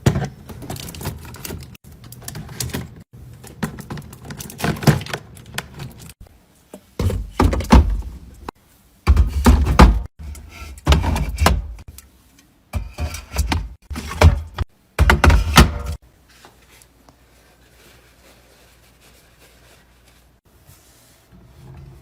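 Fridge restocking: containers, jars and packages being set down, knocked together and slid into place, a run of irregular thunks and clatters. The handling stops about sixteen seconds in, leaving a faint low hum.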